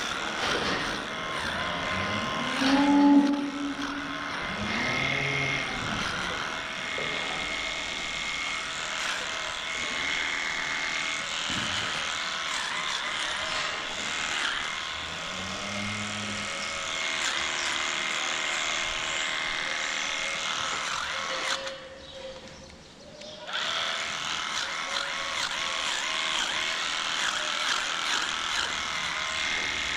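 Electric livestock clippers buzzing as they trim the hair of a cow's tail switch, over steady barn machinery hum. Cows moo now and then, the loudest about three seconds in and another past the halfway point.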